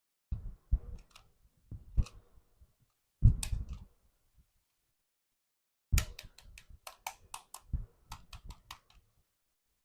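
Small toys being handled: a few knocks and rattles, then after a pause a quick run of sharp clicks, about four or five a second, for roughly three seconds.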